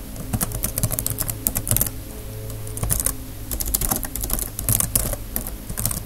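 Computer keyboard typing: quick runs of keystrokes, with a pause of about a second in the middle.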